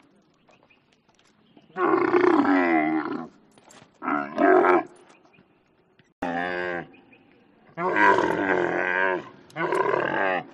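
Camel calling five times, each call lasting from about half a second to a second and a half, several with a wavering pitch, separated by short pauses.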